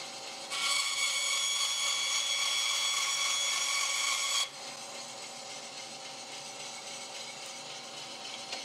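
Bandsaw running, its blade cutting through a circuit board panel for about four seconds from half a second in, the cut adding a loud, high-pitched whine that starts and stops suddenly; the saw then runs on without load.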